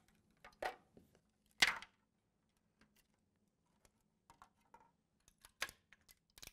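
Thin plastic release film crackling as it is peeled off freshly cured carbon fibre prepreg parts: a few short, sharp crackles, the loudest about a second and a half in, with faint ticks between.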